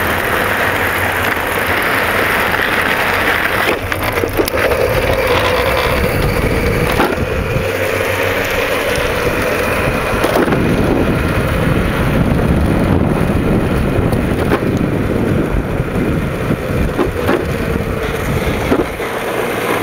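Home-built electric mini ATV riding along asphalt: the rumble and rattle of its knobby tyres and frame, with a faint steady whine from its 24-volt DC motor, run at 48 volts, and occasional knocks over bumps.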